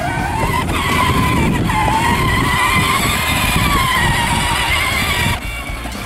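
12-volt electric ride-on toy quad driving across grass: a high motor-and-gearbox whine over a low rumble, wavering up and down with speed. The whine cuts off sharply about five seconds in as the quad stops.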